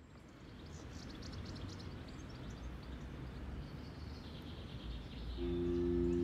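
Ambience fading in from silence: a low steady rumble with birds chirping. About five seconds in, a steady sustained chord of several tones comes in and grows louder.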